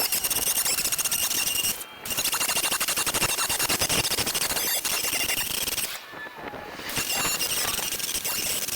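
Angle grinder cutting into body filler and sheet metal on a car's wheel opening: three runs of grinding with a steady high whine, broken by short pauses about two and six seconds in.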